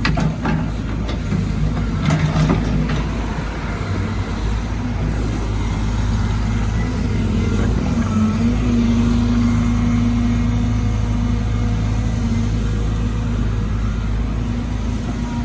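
Caterpillar 313GC excavator's diesel engine running steadily under hydraulic working load while digging, with a few short knocks and rattles in the first three seconds and a brief rise in engine note about halfway through.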